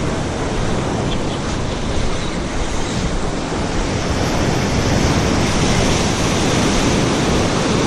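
Ocean surf washing in, with wind on the microphone: a steady rushing noise that grows a little louder about halfway through.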